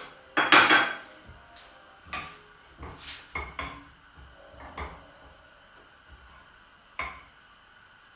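Wooden spoon knocking and scraping in a non-stick frying pan as butter is stirred in it, with a louder clatter about half a second in and scattered single knocks after.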